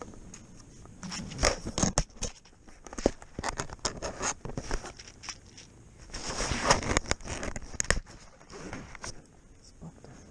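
Gear being handled close to the microphone: a run of sharp clicks and scrapes with bouts of rustling, the longest and loudest rustle about six seconds in.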